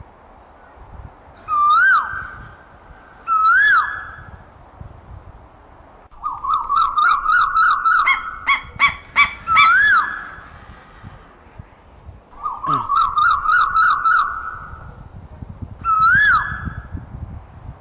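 Asian koel calling: loud, ringing swooping notes that rise and fall, given singly a couple of seconds apart. Twice they run into a fast chattering series of repeated notes lasting a few seconds each.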